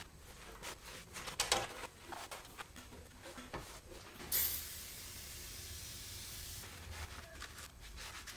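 A cloth wiping and scrubbing the sheet metal of a car's engine bay in short, uneven rubbing strokes, with a brief hiss of an aerosol spray about four seconds in.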